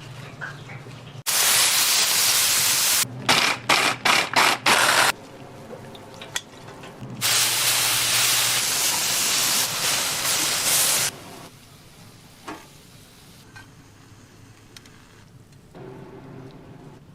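Loud hissing noise in long stretches that cut in and out abruptly, with a quick run of short hiss bursts between them; quieter after about eleven seconds.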